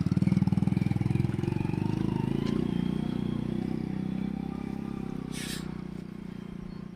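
Motorcycle engine running at low speed over rough ground, its fast low pulsing slowly fading as the bike moves away.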